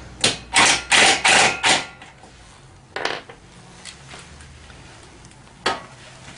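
Metal clicks and knocks from hand tools and bolts while the rack's screws are being started: a quick run of about six sharp clanks in the first two seconds, then a single knock about three seconds in and another near the end.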